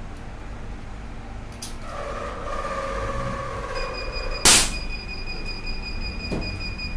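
Capacitor discharge stud welder firing a weld: one sharp crack about four and a half seconds in, over a steady low hum. A steady high tone starts shortly before the crack and holds on after it.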